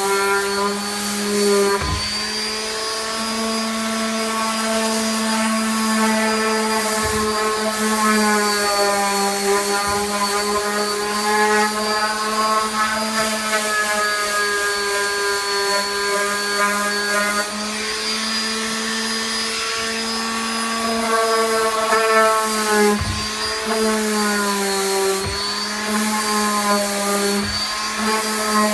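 Electric power tool motor running continuously, its pitch slowly drifting up and down as the speed varies, with a few short low knocks along the way.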